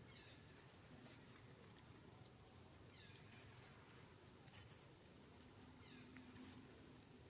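Near silence with faint, high, falling squeaks of a baby macaque, three of them about three seconds apart, among light crackles of dry leaves and husk being handled.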